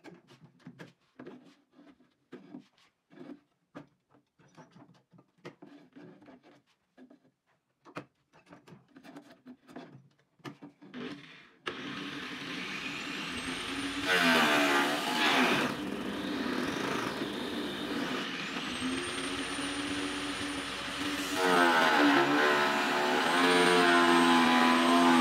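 Light knocks and clicks of wood being handled and set in place against a jig, then about halfway through an angle grinder driving a sanding drum switches on, its whine rising as it spins up and then running steadily. It grows louder near the end as a wooden board is pressed against the drum.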